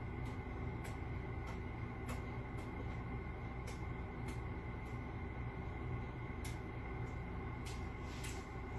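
A man chewing food, with small faint clicks coming roughly every half second to second over a steady low hum.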